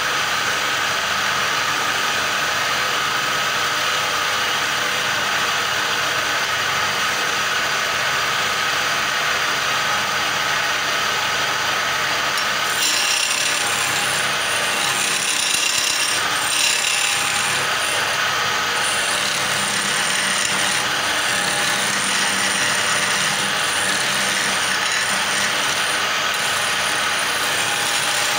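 Wood lathe running while a hand-held turning chisel cuts a spinning wooden spindle, a steady scraping hiss of wood shavings being peeled off. About halfway through the cutting grows louder and brighter.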